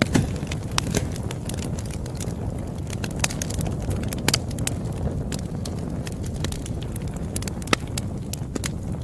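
Campfire crackling: irregular sharp pops and snaps over a steady low rumble of burning wood, with a few louder pops.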